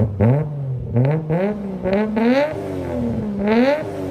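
Turbocharged Nissan RB-series straight-six with a 6Boost exhaust manifold revving: several quick blips that rise and fall in pitch, then a longer rise near the end that falls away slowly, with a brief hiss at the top of two of the revs.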